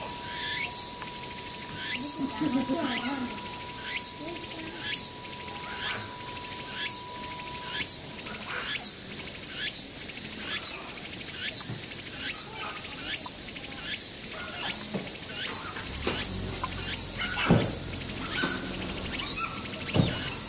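Insects calling: a short high-pitched chirp repeating a little faster than once a second over a steady high buzz. A few soft knocks come near the end, the sharpest about three-quarters of the way through.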